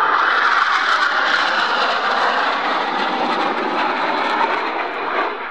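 Jet noise from a formation of Northrop F-5E Tiger II jets, each powered by twin J85 turbojets, flying overhead. It is a steady, loud rush that eases off gradually and drops a little more about five seconds in.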